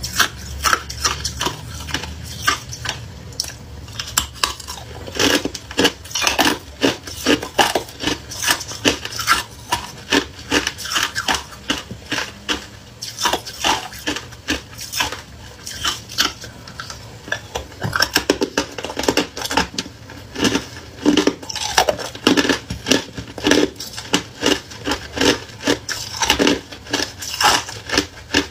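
Close-up crunching of thin pieces of ice being bitten and chewed, a quick run of sharp crackling crunches, several a second, throughout.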